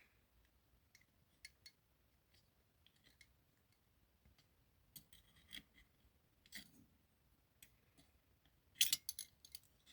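Small metal clicks and ticks of tweezers handling the steel levers of a lever lock, scattered and sparse, then a quick cluster of louder clicks near the end.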